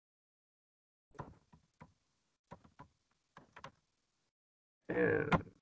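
Computer keyboard being typed on: a few scattered key clicks starting about a second in. A brief burst of voice comes near the end.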